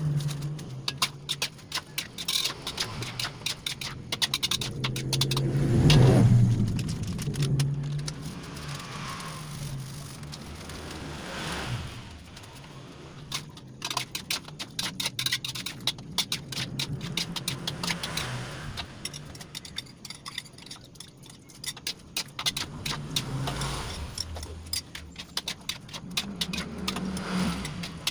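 Metal spatula scraping and clinking against a metal wok while a mushroom sauce is stirred, in quick irregular ticks. Underneath runs a low hum that swells loudest about six seconds in.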